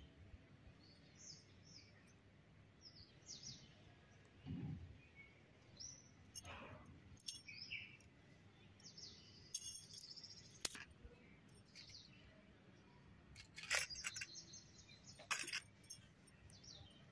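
Small birds chirping faintly on and off, with several sharp clicks and clinks, mostly in the second half.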